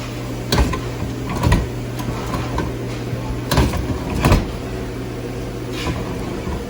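Potatoes being cut into fries: a handful of sharp clunks at uneven intervals, over a steady low hum of kitchen equipment.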